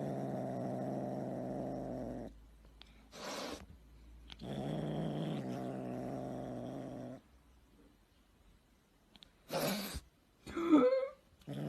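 Cat making two long, steady, low growling calls, then a short noisy burst and a brief gliding meow near the end.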